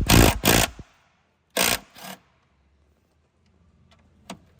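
A 12 mm socket wrench undoing the bolts on the fuel filter unit: a few short bursts of metallic working noise in the first two seconds, then quiet with a couple of faint clicks near the end.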